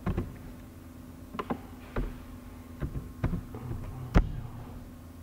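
Computer mouse and keyboard clicks while editing on a PC, about eight or nine irregular taps with a sharper click about four seconds in, over a steady low hum.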